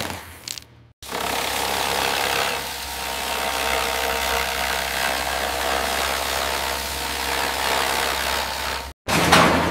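Angle grinder cutting into a metal aircraft fuselage frame: a steady grinding whine with a hiss, starting after a brief gap about a second in and cutting off suddenly near the end, followed by a louder burst of noise.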